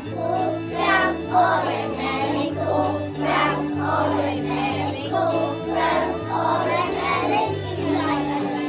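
Music: a song with a group of voices singing over steady, held bass notes.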